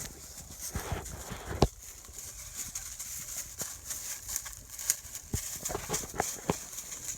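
Footsteps and rustling through forest undergrowth, an irregular run of crackles with one sharp snap about one and a half seconds in.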